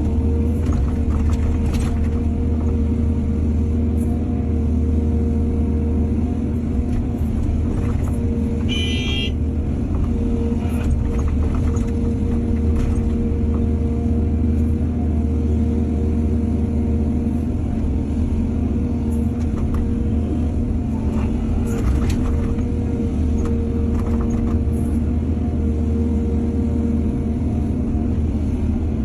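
Excavator diesel engine running steadily under load, with occasional clanks and a brief high squeal about nine seconds in.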